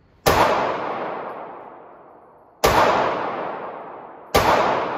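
Ruger MAX-9 9mm compact pistol fired three times at a slow, deliberate pace: roughly two and a half seconds, then under two seconds between shots. Each shot is followed by a long echo that fades out in an enclosed indoor range.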